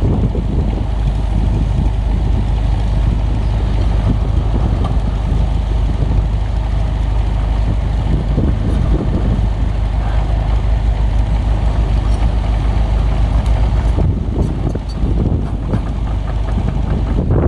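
Heavy construction machine's diesel engine running steadily, with a few short clanks near the end.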